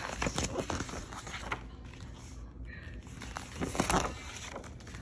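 Picture-book pages being turned and smoothed flat: crackly paper rustling, with a quick run of rustles and clicks in the first second and a half and a louder rustle a little before four seconds in.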